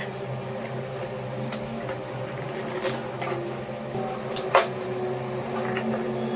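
A steady electrical hum with a few light clicks and taps, the sharpest about four and a half seconds in.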